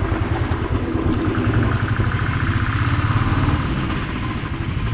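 Royal Enfield motorcycle engine running steadily at low road speed, a low, even thrum as the bike is ridden along.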